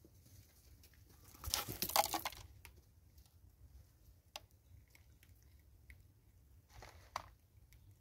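Vervet monkey scrabbling through dried corn kernels on a wooden stump close to the microphone: a loud rattling scrape of kernels about one and a half seconds in, a shorter one near the end, and scattered small clicks of grains between.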